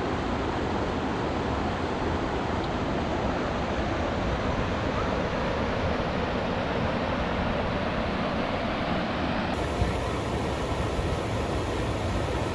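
Rushing water of river rapids, whitewater pouring steadily over rock ledges.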